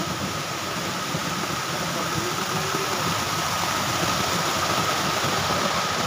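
Water pouring steadily from a wall fountain's sheet cascades into its shallow pool, an even, constant rushing noise.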